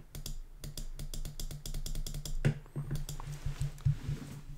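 Computer keys clicking in quick succession, several clicks a second, over a steady low hum.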